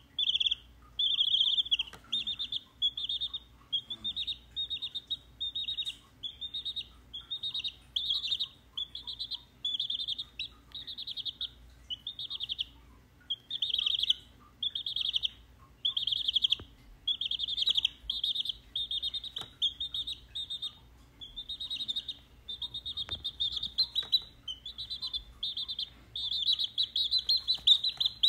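A week-old chick peeping, a steady run of short trilled chirps at about two a second.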